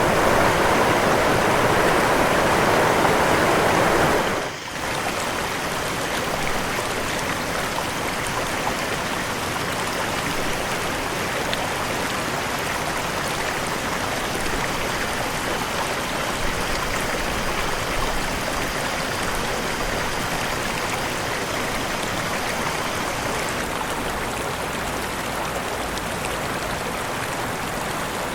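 Waterfall water rushing and splashing, a steady dense roar. About four seconds in it dips briefly and gives way to a slightly quieter, hissier rush of falling water that runs on evenly.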